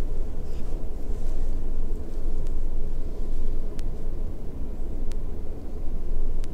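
Steady low background rumble, with a couple of faint sharp clicks in the second half.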